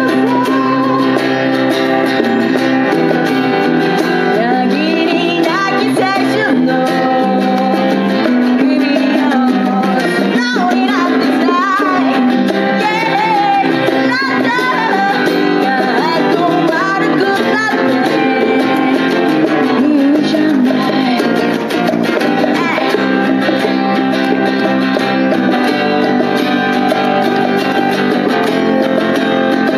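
A song played live: strummed guitar with a singing voice over it.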